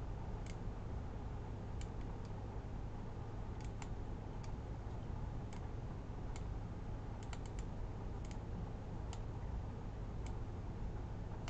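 Computer mouse clicking, single clicks and quick runs of two or three at uneven intervals, over a steady low hum.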